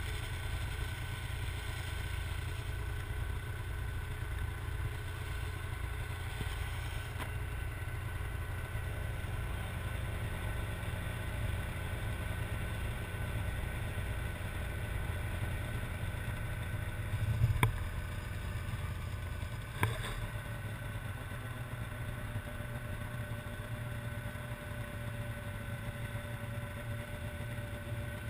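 Snowmobile engine idling steadily, with two short knocks about two and a half seconds apart past the middle.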